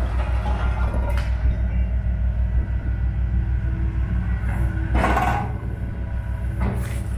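Six-tonne Hitachi mini excavator's diesel engine running steadily with a low hum as the boom lifts its sorting grapple; a short rush of noise about five seconds in.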